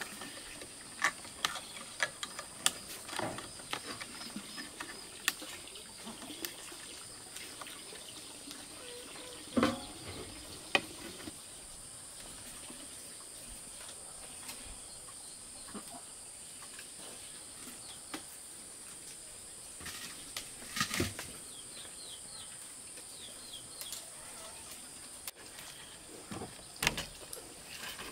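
Scattered knocks and clicks of bamboo poles being fitted and lashed with wire, with one louder knock about a third of the way through and another about two-thirds in, over a steady high insect drone.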